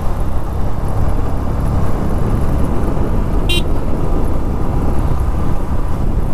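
Steady wind rumble and engine noise while riding a motorcycle on a mountain road, with one short horn beep about three and a half seconds in.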